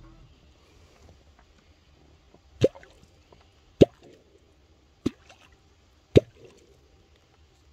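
Catfish clonk (vábnička) struck into the water four times, about a second apart, each a short sharp plop. This is the call used to draw wels catfish to the bait.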